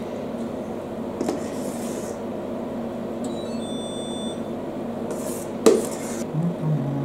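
Metal spoon clinking and scraping against a stainless steel mixing bowl while stiff meringue is scooped out, with a light clink about a second in, a faint ringing in the middle and a sharp clink followed by a short scrape near the end. A steady low hum runs underneath.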